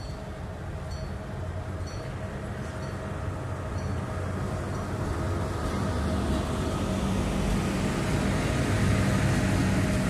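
Locomotive-hauled passenger train approaching and passing close by, a steady rumble of wheels on rails that grows louder as the coaches go past. Faint high pings about once a second in the first few seconds.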